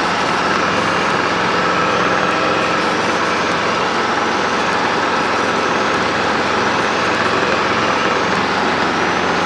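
Piston-engine helicopter's engine and rotor running steadily at hover power during a pedal turn.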